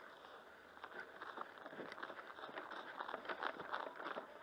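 Footsteps on grass and the rustle of clothing and kit as a player moves, heard as a run of soft, irregular scuffs and crackles that thicken from about a second in.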